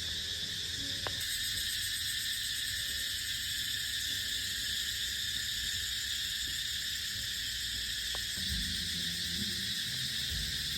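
Steady insect chorus, a dense high chirring that doesn't let up.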